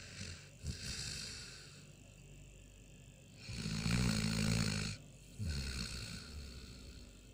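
An animal snoring in its sleep, much like a human. A hissy breath about a second in is followed by a loud, rattling snore lasting about a second and a half, then a softer rumbling breath out.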